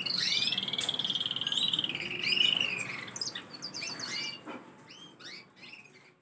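Silver agate canary singing: a long, fast rolling trill lasting about three seconds, then short chirps and downward-sliding notes that grow fainter toward the end.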